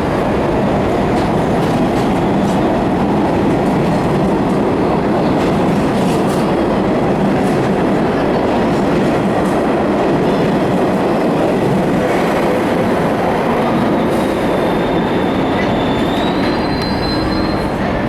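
New York City subway train running on the rails: a loud, steady rumble with scattered clicks of the wheels over rail joints. A high wheel squeal comes in during the last few seconds and rises in pitch.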